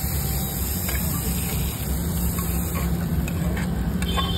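Steady low hum and hiss of street background noise, with a few light clinks near the end as a steel spatula knocks against the steel pan while vegetables are tipped out.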